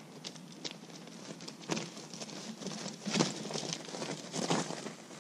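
Faint, irregular crunches and clicks of an old mountain bike's tyres rolling over loose rocks and gravel, a few louder ones near the middle.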